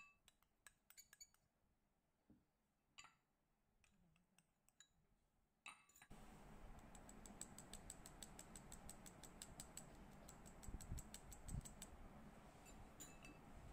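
Near silence at first. Then, about six seconds in, a fine-mesh metal sieve is shaken and tapped over a glass bowl to sift flour: faint, quick, even clicking, several a second, which dies away near the end.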